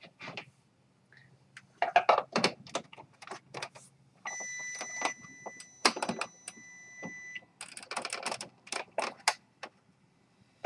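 Rapid clicks, taps and rattles of hands handling an inkjet printer while connecting its power. A steady high electronic beep lasting about three seconds sounds in the middle.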